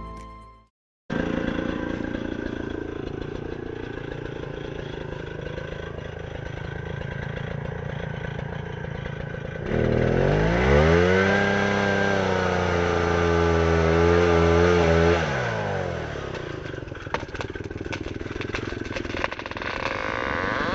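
A small engine running at idle, revved up about ten seconds in, held high for several seconds, then let back down to idle.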